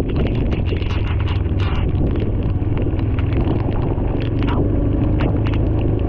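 Bajaj Dominar 400 motorcycle riding at a steady speed: an even low engine hum under a heavy rush of wind noise, with scattered sharp ticks throughout.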